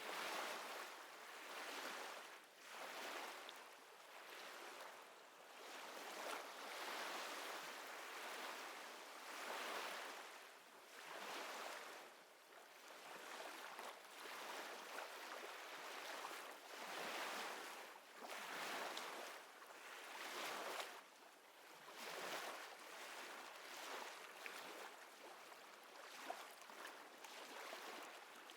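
Ocean waves washing in soft, hissing surges that swell and ebb every second or two.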